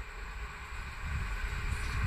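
Siemens Smartron electric locomotive hauling a passenger train, approaching with a low rumble that grows steadily louder.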